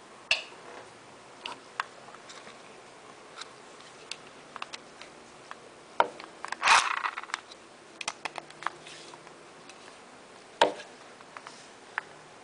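Scattered clicks and knocks from a small plastic dynamo flashlight being handled, with a louder bout of rattling and clicking about six seconds in.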